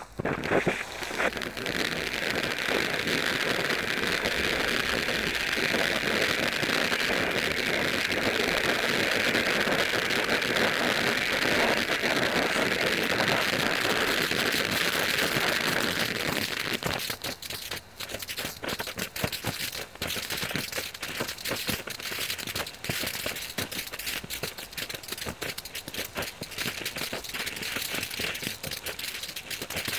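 Nico Europe eco ground fountain firework spraying sparks: it starts suddenly with a steady hiss, and after about 17 seconds turns to a sputtering crackle of many small pops.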